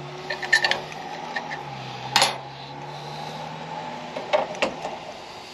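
Metal tools and small metal parts clinking and clicking against each other: a few sharp clicks, the loudest about two seconds in, over a steady low hum.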